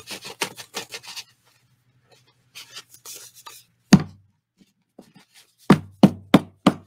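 Loose paper pages rustling and sliding as a stack is handled. About four seconds in comes a sharp knock, then near the end four quick knocks, as the stack of pages is tapped against the tabletop.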